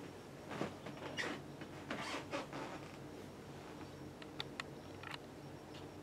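A Casablanca Zephyr ceiling fan's motor runs with a steady low hum just after being switched to speed 3. A few soft rustling swishes come in the first half, and light clicks come near the end.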